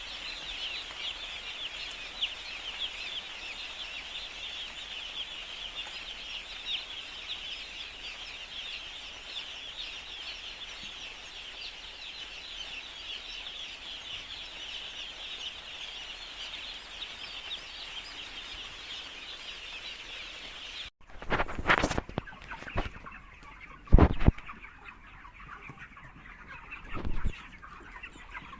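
A large flock of poultry-farm chickens calling together, a dense mass of short, high overlapping calls. About two-thirds of the way in the sound changes abruptly, and a few loud knocks or thumps come over a quieter chorus.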